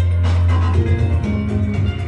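Dance music with a deep held bass note, drum hits and a melody of short pitched notes.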